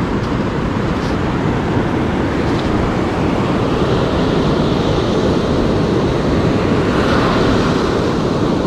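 Ocean surf washing onto the beach, mixed with wind rumbling on the microphone. The noise is steady and swells a little in the second half.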